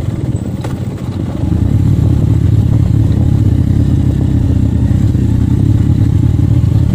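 Motorcycle engine running as the bike rides over a rough dirt track. It eases off slightly in the first second or so, then picks back up.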